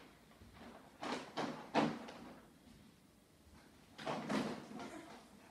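Several knocks and a clatter from plastic crates full of toy building bricks being handled and carried up a wooden staircase: a cluster about a second in, the sharpest near two seconds, and another about four seconds in.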